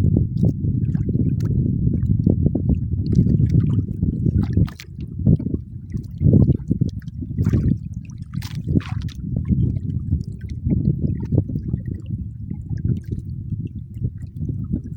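Sea water sloshing and gurgling against a small boat's hull, with irregular splashes and a steady low rumble.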